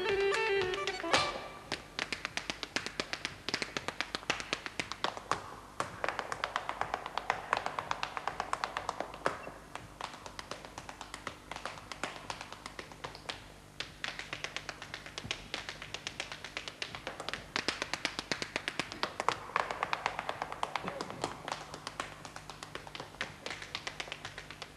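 Irish step dancing in hard shoes without accompaniment: a rapid, rhythmic stream of sharp taps and clicks. Instrumental music stops about a second in, just before the taps begin.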